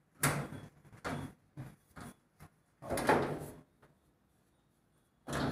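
Sheet-metal and plastic control console of a top-load washer being handled and tipped back: a series of short knocks and scrapes, with a longer scrape about three seconds in.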